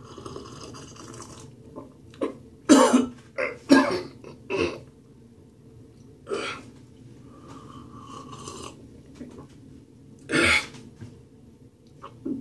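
A man coughing, clearing his throat and gasping several times as he drinks a glass of hot water with apple cider vinegar. The sour, strong drink catches in his throat. The loudest coughs come in a cluster a few seconds in, with single ones later.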